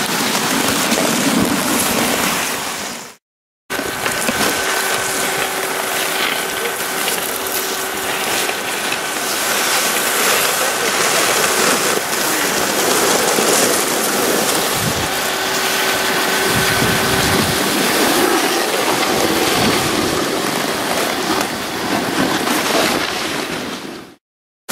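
Snowmaking guns spraying: a steady loud rushing hiss with a faint steady whine in it, cut to silence briefly about three seconds in and again near the end.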